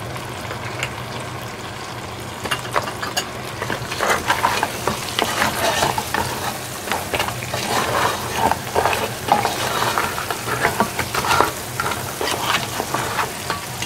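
Brown crab pieces in their shells sizzling as they are stir-fried in a pan, with a wooden spatula scraping the pan and the shells knocking against it. The stirring picks up about two and a half seconds in and turns busier from about four seconds.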